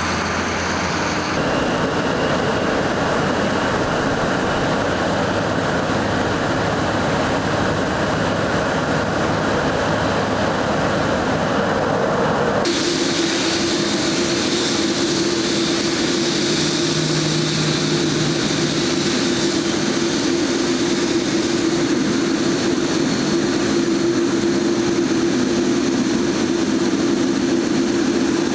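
Boeing 787 Dreamliner's jet engines running at low taxi power: a steady loud rush with a low hum under it. The sound changes abruptly once near the start and again just before halfway.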